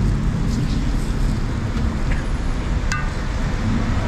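Steady street traffic rumble under the hiss of roti dough frying on a flat steel griddle. A single sharp click comes about three seconds in.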